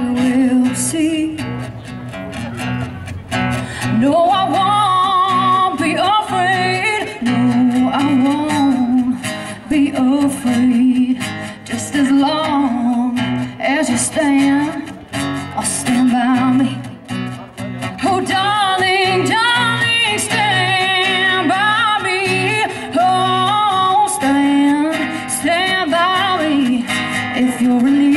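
A woman singing a song over a strummed acoustic guitar, amplified through a PA system.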